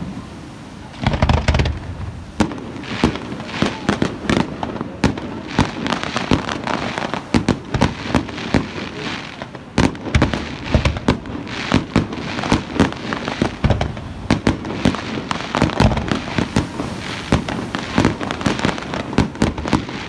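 Fireworks display: a dense, continuous run of bangs and crackling as shells burst, several a second, with a heavy low boom about a second in.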